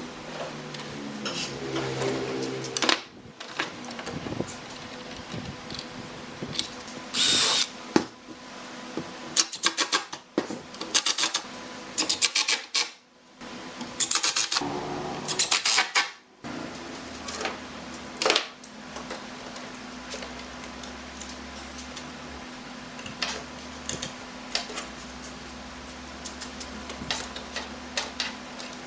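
Cordless impact driver driving screws into a wooden frame in several short bursts, with clicks and knocks from clamps and timber being handled between them. A steady low hum sets in about halfway through.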